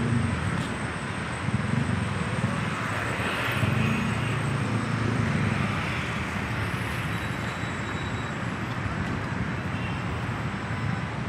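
City street traffic: cars and motorcycles driving past, their engines swelling and fading over a steady traffic hum.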